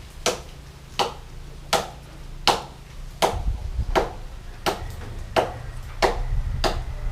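Rhythmic chopping blows of a blade into tree wood: about ten sharp strikes, evenly paced at roughly one and a half a second, with a low rumble underneath.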